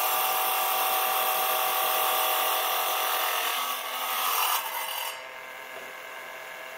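Electric tile cutter grinding through a tile: a steady, gritty, high-pitched whine. About five seconds in the cut ends and the sound drops sharply to a quieter steady run.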